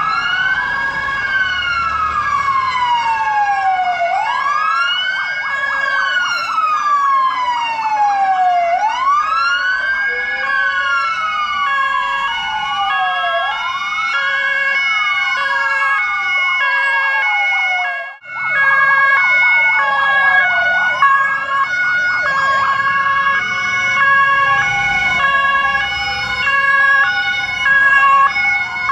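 Several fire-service sirens sounding together as a column of fire vehicles moves off. A wailing siren rises and falls about every four to five seconds over two-tone horns alternating high and low. The sound cuts out for a moment just past halfway.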